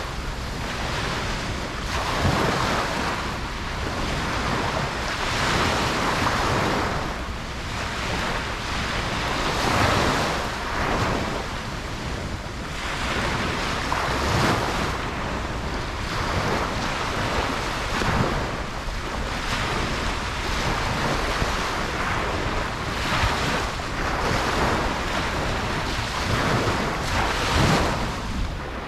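Ocean waves breaking on a beach, the surf swelling and washing in every few seconds, with wind noise on the microphone.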